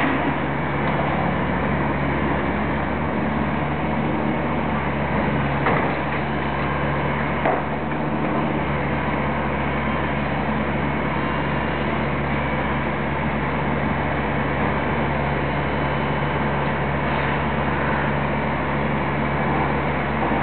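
Steady engine drone of machinery running on a building site, over a constant wash of street noise, with two short knocks about six and seven and a half seconds in.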